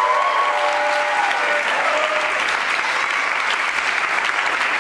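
Audience applauding and cheering at the end of an aerial silks routine, a dense steady clapping with a few held whoops in the first two seconds.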